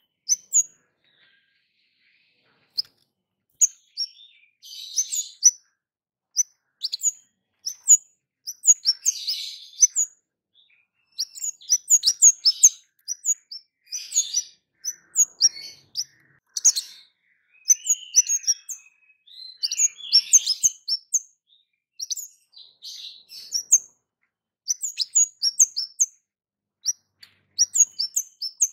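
Orange-headed thrush (kemade) calling loudly: quick runs of short, sharp, high "cit" chirps that drop in pitch, mixed with bursts of twittering, with brief pauses between the runs.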